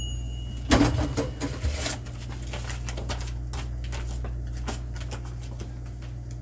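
Air fryer being worked by hand: a brief high beep that stops right at the start, a cluster of clicks and knocks from its dial and housing about a second in, then scattered light ticks over a steady low hum.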